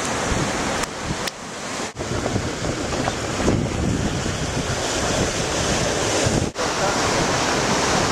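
Wind buffeting the microphone over the rush of water along the hull of a Swan 45 sailing yacht planing fast through rough seas, a steady loud noise with two brief dropouts.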